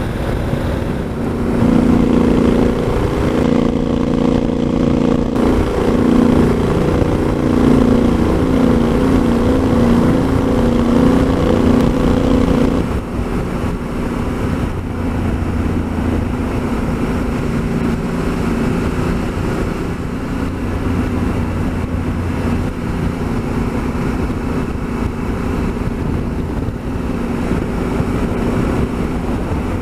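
Honda Africa Twin motorcycle engine running steadily at cruising speed, with wind noise on the on-board microphone. The engine note is louder and fuller for the first dozen seconds, then drops a little and the hiss softens for the rest.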